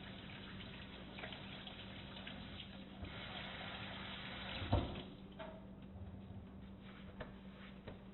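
Water running from a tap into a sink, with scattered drips and a steady low hum under it. A knock comes a little under five seconds in, after which the running water is quieter and mostly single drops are heard.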